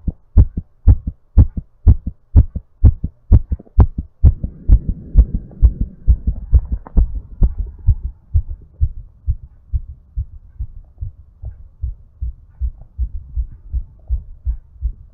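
A fast human heartbeat, a little over two beats a second, raised during recovery from exercise. The beats are loud and sharp at first and softer after about four seconds, when a breathy rush rises and fades over the next few seconds.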